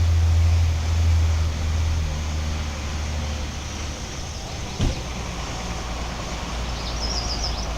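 Truck engine running with a steady low drone that eases off after about two seconds, and a single knock about five seconds in.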